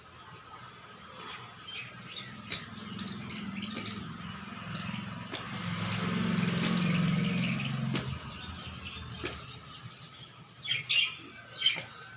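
Budgerigars chattering with many short chirps, with two louder squawks near the end. A low hum swells in the middle and fades out about eight seconds in.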